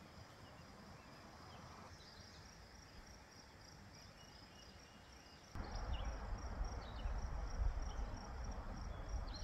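Insect chirring in a steady, evenly pulsed high tone, with a few faint bird chirps. Past the middle, a louder low rushing noise of wind on the microphone starts suddenly, until the sound cuts off at the end.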